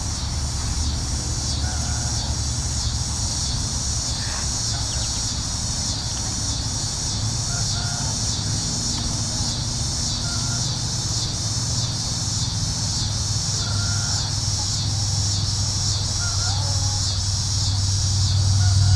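Insects trilling in a steady, evenly pulsing high-pitched chorus, with short bird chirps scattered through it and a steady low rumble underneath that grows slightly louder near the end.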